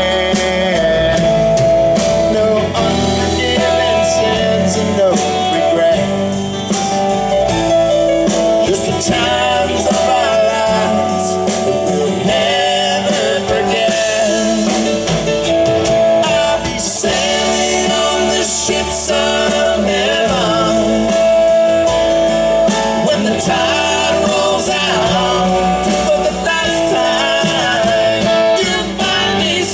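Live country band playing amplified through a PA: guitar, bass and drums, with singing over them.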